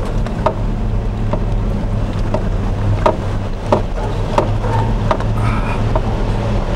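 A vehicle's engine runs with a steady low hum as it drives over a rough, snowy road surface, heard from inside the cab. Irregular knocks and rattles come from the bumps every second or so.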